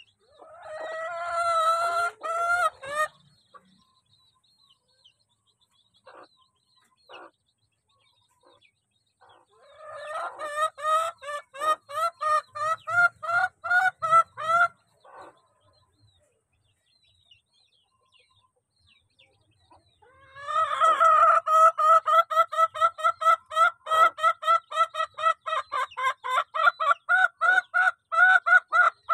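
A chicken clucking in quick runs of repeated calls, about three a second, in three bouts: briefly at the start, for about five seconds from ten seconds in, and loudest from about twenty seconds in to the end. Faint high chick peeps come in the gaps.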